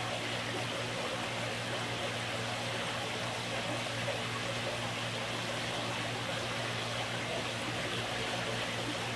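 Steady background hiss with a constant low hum underneath; no distinct sounds stand out.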